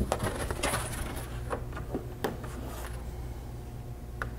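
Scattered soft taps and rustles of hands handling boards and materials on a work table, over a steady low hum.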